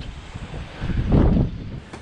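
Wind buffeting the microphone: a low rumble that swells in a gust about a second in, then eases.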